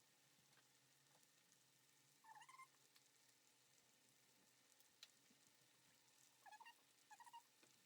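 Near silence: room tone with three faint, short animal calls, one about two seconds in and two close together near the end, and a few faint clicks.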